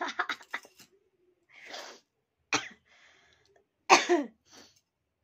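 A woman sneezing, set off by tickling the inside of her nose with a thin rolled paper twist. Short breathy sounds come first. The loudest sneeze, with a falling voiced cry, comes about four seconds in.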